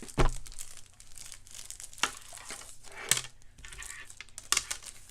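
Toy packaging being crinkled and torn open by hand, with a run of sharp crackles over a low rustle.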